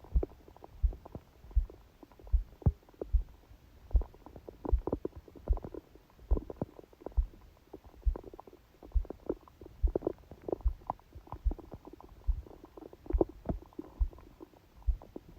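A sleeping person's stomach gurgling in irregular small pops and rumbles, picked up by a phone pressed on the belly. Under it a steady, low heartbeat thuds a little faster than once a second.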